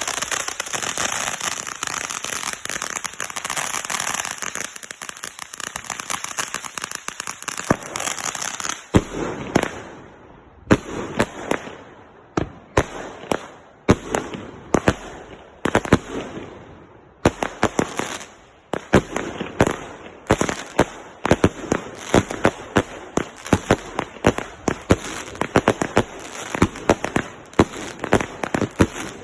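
Consumer fireworks going off. First comes about nine seconds of dense, continuous crackling. Then a rapid series of sharp bangs, several a second with short gaps between clusters, keeps on to the end.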